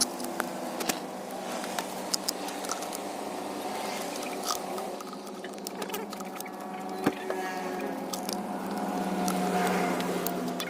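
A small electric motor running steadily with a hum, over scratching, rubbing noise and scattered light clicks.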